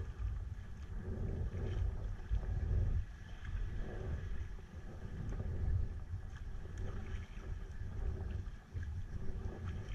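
Wind buffeting the GoPro's microphone in a fluctuating low rumble, over the splashing and sloshing of sea water around a sea kayak as it is paddled.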